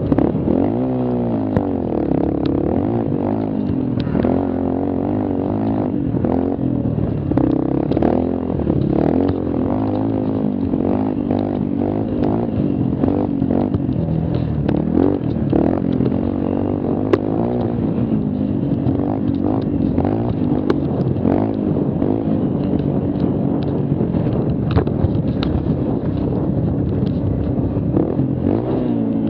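Mini quad's small engine running hard, its pitch rising and falling again and again as the throttle opens and closes, with clatter and knocks from the machine over the rough trail.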